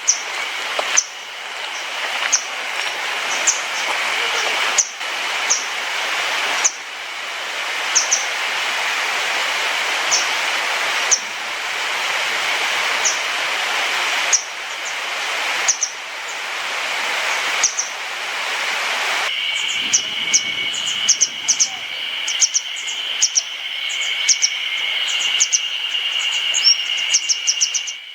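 Small wild songbirds calling: short high notes repeated about once a second, then a quick run of many notes after a cut, over a steady high hiss.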